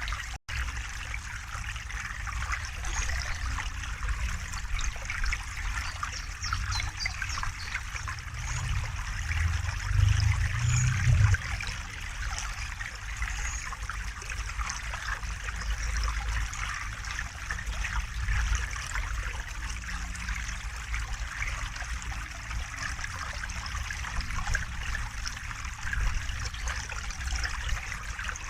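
A river or stream flowing and trickling steadily, with a low rumble underneath that swells briefly about ten seconds in. The sound cuts out for a split second just after the start.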